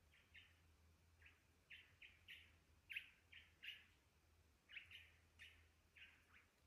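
Small forest birds chirping: a faint, irregular run of short, sharp chirps, about two a second.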